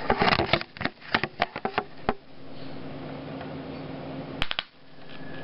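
Old Volvo car speaker popping and crackling as a DC lead is tapped against its terminal: a quick run of clicks and pops for about two seconds, then a steady low hum, broken by two sharp pops near the end.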